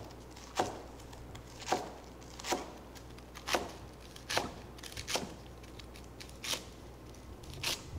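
Chef's knife slicing through a rolled bundle of collard green leaves onto a plastic cutting board: about eight separate cuts, roughly one a second, each a short sharp knock.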